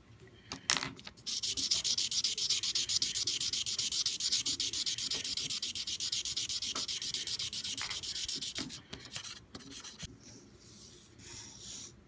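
Felt-tip marker scribbling quickly back and forth on paper, colouring in a patch: a close, rhythmic, scratchy rubbing. The steady strokes stop about nine seconds in, leaving a few lighter scratches.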